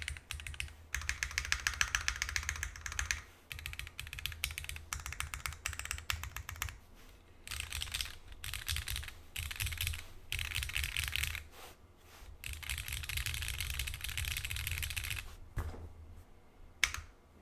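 Typing on a custom 60% mechanical keyboard with an aluminum case, a gummy O-ring mount, no foam and Cherry MX Black Hyperglide linear switches. Fast runs of keystrokes are broken by short pauses, with one louder single keystroke near the end.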